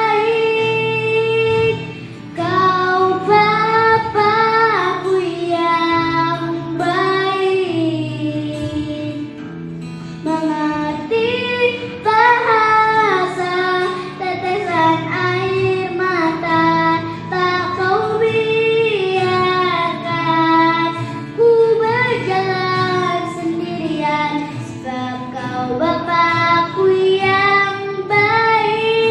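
A young girl singing a slow melody into a microphone, holding and gliding between notes, over an instrumental accompaniment.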